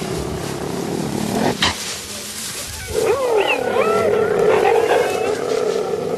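Several cheetahs calling together: a steady growl-like rumble, then from about halfway many overlapping short calls sliding up and down in pitch.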